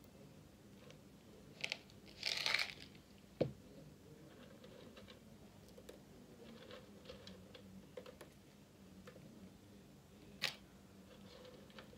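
Faint handling noise from weighing out cetyl alcohol pellets: a plastic bag crinkling briefly about two seconds in, pellets ticking onto paper on a scale, a light knock, and a sharp click near the end.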